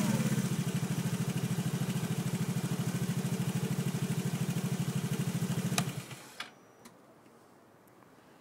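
Vespa GTS 250 ie's single-cylinder four-stroke engine idling with an even pulse, then switched off about six seconds in, followed by a few sharp clicks.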